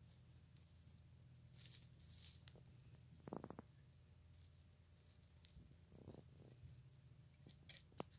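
Faint rustling of straw bedding and clover leaves as wild baby rabbits shift about and nibble, with a short quick run of clicks about three seconds in. A low steady hum sits underneath.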